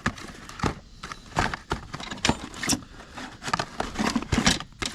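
Metal HVAC capacitor cans clinking and knocking against each other as a stock of them is rummaged through, an irregular run of sharp clacks.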